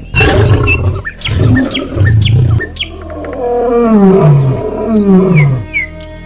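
Lion roaring as an intro sound effect: low roars over the first couple of seconds with a few sharp hits, then three long calls, each falling in pitch. Short bird chirps come near the end.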